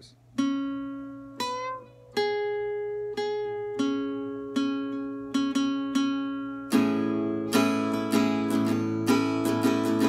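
Acoustic guitar picking single notes one at a time, each left to ring, with a string bend that slides one note up in pitch about a second and a half in. From about seven seconds in, the notes come faster and ring together.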